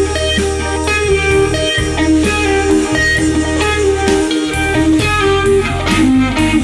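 Blues-rock song in an instrumental stretch with no singing: electric guitar playing melodic lines over steady bass notes and a regular drum beat.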